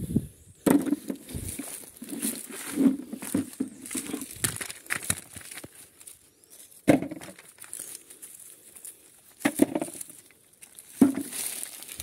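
Irregular rustling, knocks and dull thuds as buriti palm fruits are gathered by hand from among dry leaves and tossed together, about a dozen separate handling noises with short pauses between.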